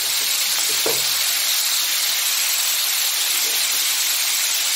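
Stir-fry of broccoli and pork belly sizzling steadily in a hot pan: a constant frying hiss.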